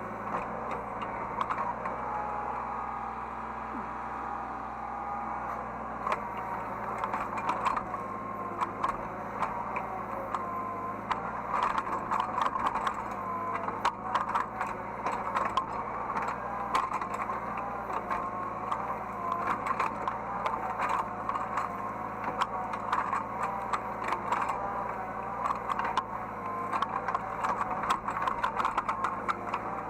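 Hydraulic excavator running, heard from the operator's seat: a steady engine hum with a whine that wavers in pitch as the hydraulics work. Frequent rattles and clicks come in from about six seconds in.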